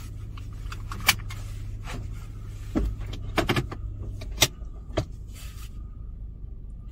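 Vehicle engine idling with a steady low hum, while car doors are shut with a series of sharp clacks and thuds between about one and five seconds in, two of them much louder than the rest.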